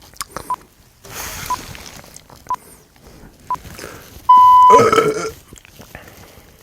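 Short electronic beeps about once a second, like a countdown, ending in a long loud beep about four seconds in. A person burps loudly right after the long beep.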